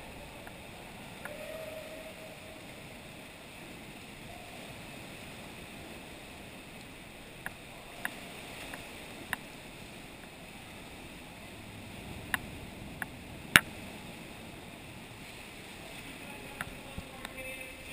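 Water lapping quietly around plastic sit-on-top kayaks, with a scattering of sharp clicks and knocks, the loudest about three-quarters through.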